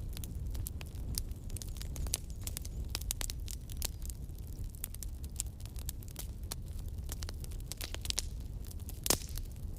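Campfire wood burning, with irregular crackles and pops over a steady low rumble of the flames, one sharper pop a little after nine seconds in.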